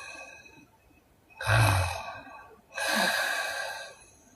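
A sleeping woman snoring with her mouth open: the end of an exhale fades at first, a short low snore comes about a second and a half in, and a long airy breath out through the mouth follows.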